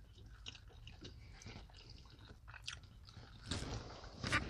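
Faint close-up chewing and mouth sounds of people eating, with a few soft clicks; the eating sounds get a little louder about three and a half seconds in.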